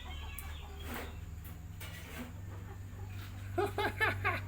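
Hill myna (beo) imitating a chicken's clucking: a quick run of about five short clucks near the end.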